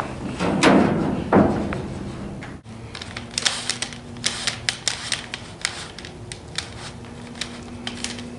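Two gritty crunches, then, after a break, a run of light clicks and taps as a coil of coated wire cable is handled and uncoiled.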